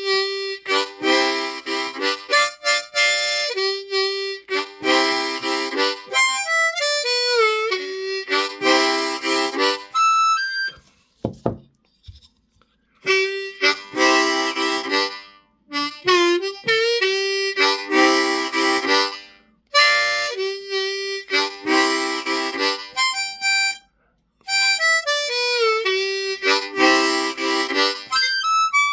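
Seydel diatonic harmonica in C playing chugging blues riffs with chords and bent notes that slide down in pitch. The phrase breaks off about eleven seconds in, with a brief low thump in the pause, then is played again.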